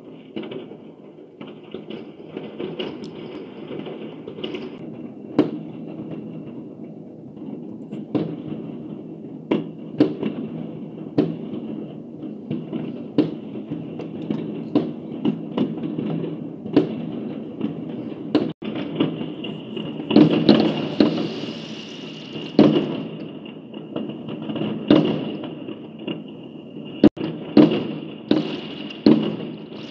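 Fireworks going off: a dense string of bangs and pops over a constant rumble of distant explosions. From about twenty seconds in they come faster and louder.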